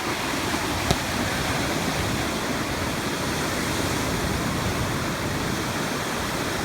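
Steady rush of ocean surf on the beach, with a single sharp click about a second in.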